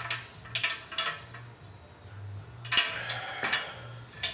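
Sharp metallic clinks and knocks, about six of them at uneven intervals, from the rusted steel exhaust pipe of a Honda CT90 being handled and turned over.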